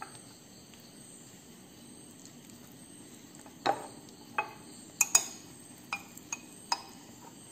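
A spoon clinking and scraping against glass as sauce is scooped from a jar and knocked into a glass mixing bowl: about seven short clinks with a brief ring, starting a few seconds in.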